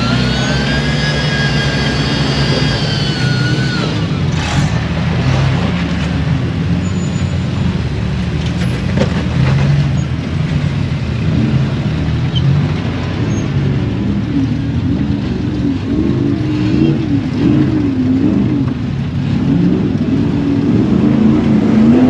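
An off-road vehicle's engine running at low revs while rock crawling, with the throttle rising and falling in repeated short blips in the second half. A high steady whine sounds over the engine for the first three seconds or so, then drops in pitch and fades.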